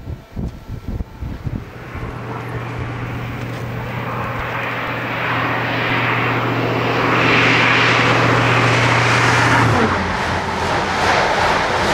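InterCity 125 High Speed Train approaching at speed and passing beneath, its Class 43 power car's diesel engine drone growing louder as it nears. The drone cuts off about ten seconds in as the power car goes under, leaving the rush of the coaches with a quick clatter of wheels over the rails. Wind buffets the microphone at first.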